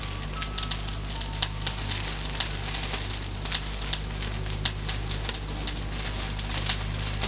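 Charcoal burning in a Weber chimney starter, crackling with sharp irregular pops several times a second as it catches and throws sparks. A steady low hum runs underneath.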